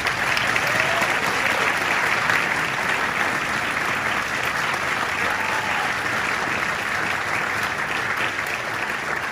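Audience applauding steadily at the end of a concert band piece.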